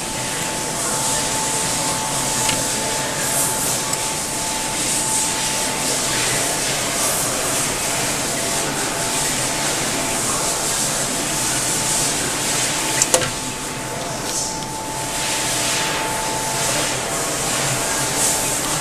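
Steady hiss of blowing air and machine hum from a KBA Rapida 105 sheetfed offset press that is switched on, with a constant high whine; a single sharp click about thirteen seconds in.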